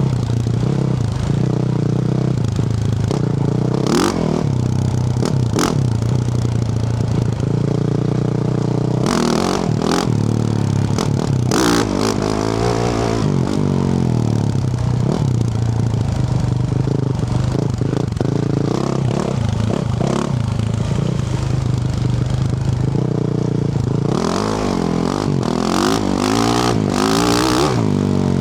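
2024 Yamaha YZ450F's single-cylinder four-stroke engine through a Yoshimura RS-12 exhaust, heard close from the exhaust side, revving up and down on and off the throttle while riding. Sharp knocks and rattles come through now and then.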